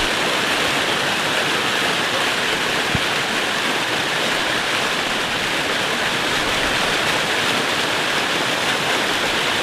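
An 80-foot waterfall pouring steadily: an even, unbroken rush of falling water.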